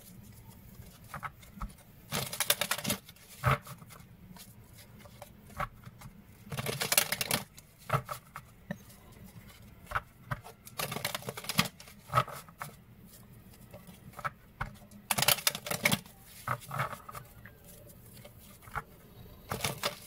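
A deck of cards being shuffled by hand: several short bursts of flapping card noise with soft clicks and taps in between.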